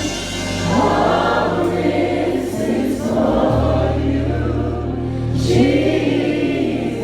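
Live gospel worship music: a choir singing drawn-out phrases over sustained low chords.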